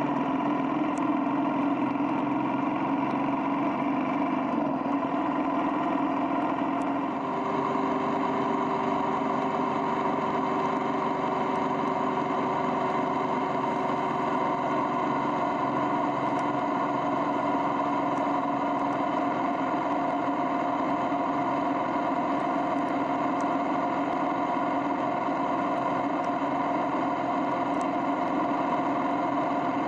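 Motorcycle engine running at a steady cruise, heard from the rider's seat over a constant rush of wind and road noise. The engine note shifts about seven seconds in, then holds steady again.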